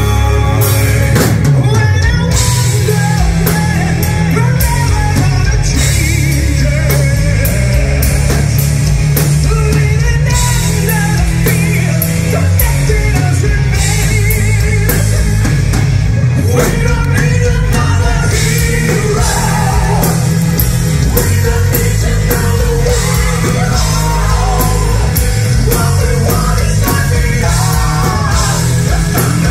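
Live heavy rock band playing loud through a stage PA: male singers over a drum kit, electric guitar, bass and keyboards.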